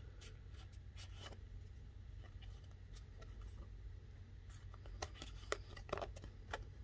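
Faint handling of printed game cards: cards sliding and rubbing against each other in the hands, with scattered light ticks as they are shifted, more of them about five seconds in. A low steady hum lies underneath.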